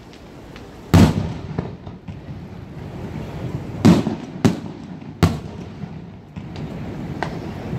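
Aerial firework shells bursting: four sharp booms with a rumbling echo between them, the loudest about a second in, then three more in quick succession between about four and five seconds in, and a few fainter pops near the end.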